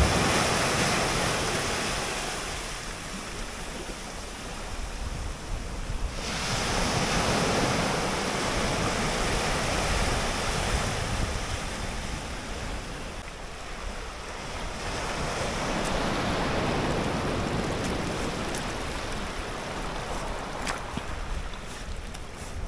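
Small waves breaking and washing up a sand-and-pebble beach, the surf swelling and fading every few seconds.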